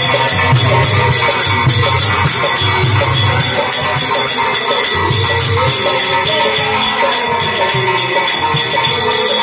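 Devotional kirtan: a group of men singing a Shiva bhajan to hand clapping and steady jingling metal percussion, with a pulsing low beat underneath.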